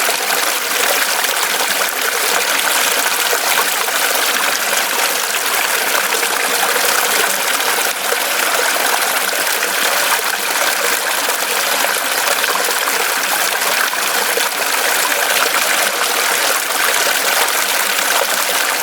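Mountain stream running over rocks: a steady, unbroken rush and trickle of flowing water.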